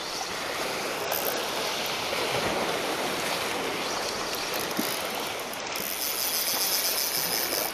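Spinning reel's drag paying out line steadily as a large hooked fish runs against the bent rod. It makes a continuous hissing whir.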